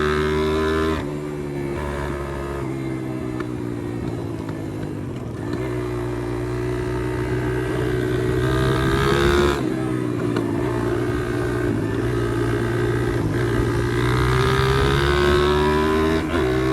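Pit bike engine running under throttle while riding, its pitch rising and falling gently, with sudden changes in the sound about a second in and again near ten seconds.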